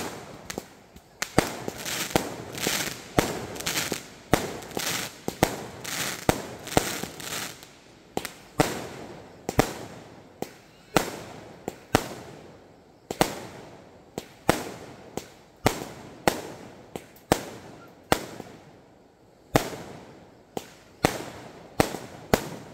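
Aerial fireworks fired one after another: a sharp bang a little over once a second, each followed by a fading crackle of the bursting shell.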